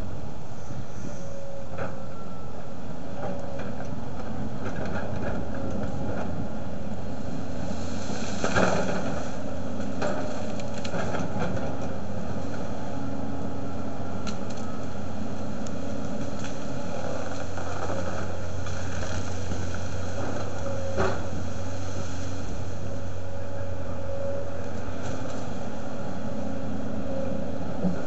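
Volvo crawler excavator's diesel engine running steadily under work, with a faint whine that comes and goes. A couple of sharp cracks stand out, about a third of the way in and again about three-quarters through, as it works into the brush.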